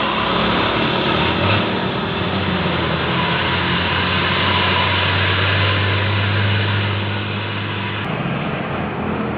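Tour bus passing on the road, its diesel engine running with a strong low hum under steady road noise. The sound changes abruptly about eight seconds in.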